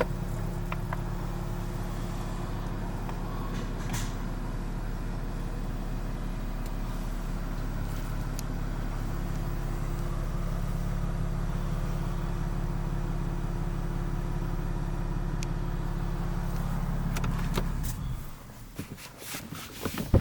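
Range Rover engine idling steadily, a low even hum, which stops about two seconds before the end as the engine is switched off.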